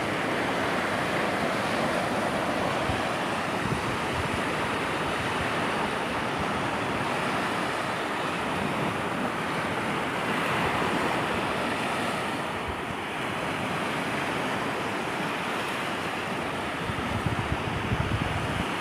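Sea waves washing steadily onto a beach, with wind rumbling on the microphone, a little stronger near the end.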